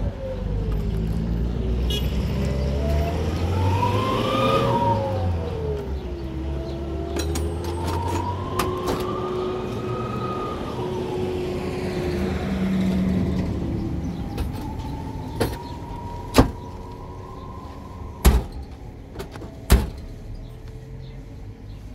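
A motor vehicle running, its engine pitch slowly rising and falling several times over a low rumble. Three or four sharp knocks come in the second half.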